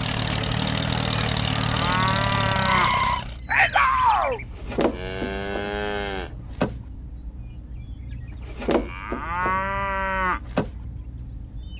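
Cow mooing: two long moos, about five and nine seconds in, each lasting roughly a second and a half, with a shorter call about two seconds in. Under the first call runs a steady rumble that stops about three seconds in, and a few light knocks fall between the moos.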